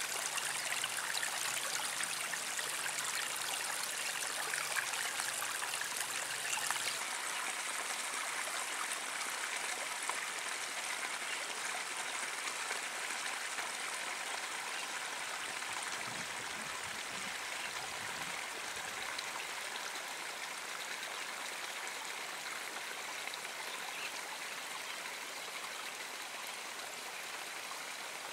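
Shallow running water trickling and splashing steadily, an even rush with no let-up.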